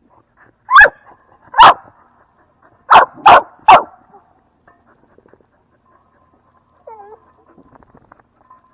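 American bully dog barking five times in quick, very loud barks within the first four seconds, then a faint short whine about seven seconds in.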